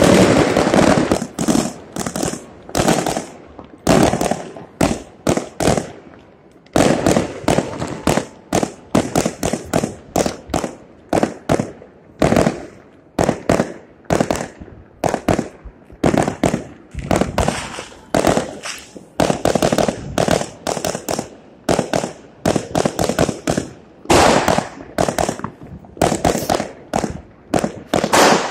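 Fireworks going off in a rapid, continuous series of bangs and cracks, several a second, with a short lull about six seconds in.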